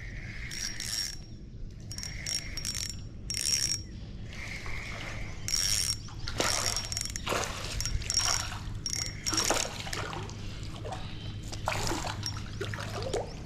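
A fishing reel being cranked in repeated bursts while a hooked bass is reeled in, with water splashing at the surface.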